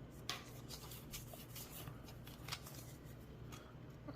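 Pokémon trading cards being handled: faint rustling with scattered light clicks as cards slide and flick against each other.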